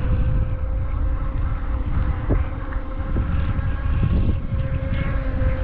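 Wind buffeting the microphone over the steady, thin whine of the UDIRC Arrow RC boat's small electric motor running out on the water.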